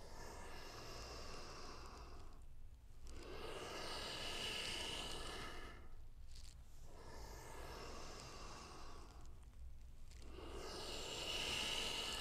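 A man breathing slowly and deeply during cat-cow yoga movements. There are about four long breaths of two to three seconds each, with short pauses between them.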